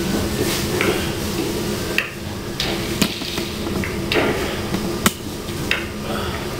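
Sharp slaps and impacts from a martial artist's strikes and stomps in a Praying Mantis Fist kung fu form, several seconds apart with the strongest near the middle and about five seconds in, heard through a TV's speaker over a steady low hum.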